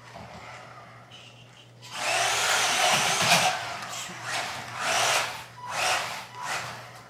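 Small electric RC truck driving: a faint whir at first, then much louder motor and tyre whirring from about two seconds in as it runs across the hard floor, rising and falling in swells about once a second.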